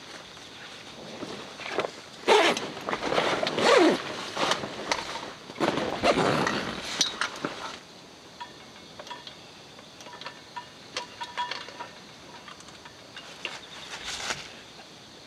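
Loud, irregular rustling and handling noises, someone moving about and shifting gear, fill the first half and then give way to faint ticks and clinks. Underneath, a steady high chorus of autumn insects chirps throughout.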